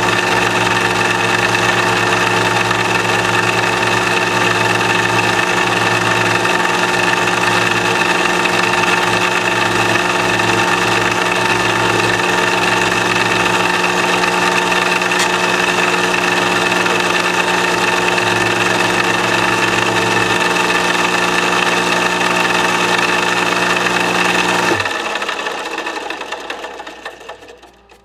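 Overhead drive motor spinning a rose engine lathe's drilling frame cutter as it cuts into the end grain of an ash blank: a steady mechanical hum made up of several tones. About three seconds before the end the drive is switched off and the sound dies away.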